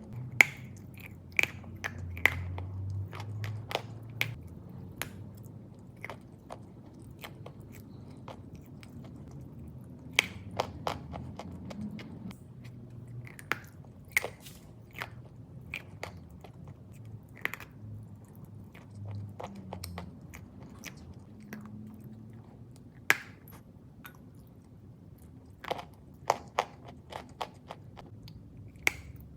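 Close-up crunching and chewing of chalk: irregular sharp, crisp cracks as pieces are bitten and ground between the teeth, over a steady low chewing noise.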